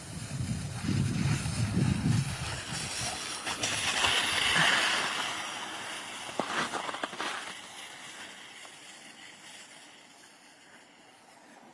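Hiss and scrape of a board sliding down packed snow, with wind rumbling on the microphone for the first couple of seconds. A few sharp scrapes come about six to seven seconds in, and the hiss fades over the last few seconds.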